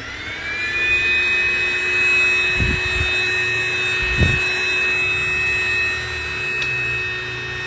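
Keromee 2-in-1 cordless handheld mini vacuum cleaner running: its motor whine climbs during the first second and then holds a steady high pitch. Two short low bumps come about a second and a half apart in the middle.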